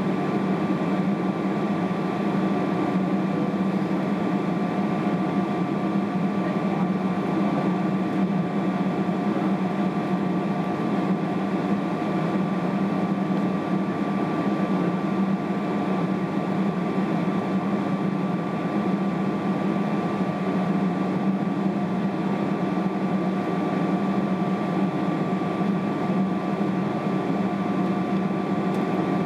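Steady cabin hum of a Boeing 777-300ER holding on the ground, its GE90 engines idling and the air-conditioning running, with a low drone and a couple of faint steady whines above it.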